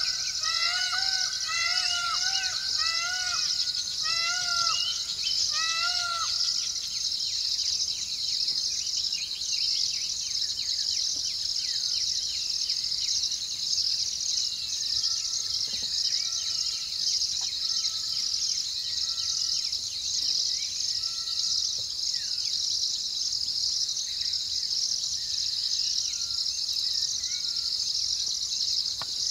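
Steady, high-pitched shrilling of a night insect chorus of crickets. It is joined by a run of about a dozen short rising-and-falling calls in the first six seconds.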